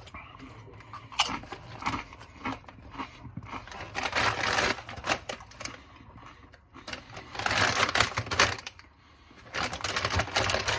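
Doritos tortilla chips being chewed, crunching in several bursts of rapid crackling.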